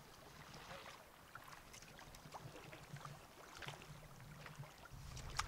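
Faint splashing and sloshing of stream water as a rubber-mesh landing net is dipped in to scoop a hooked fish, with scattered small splashes and a louder click near the end.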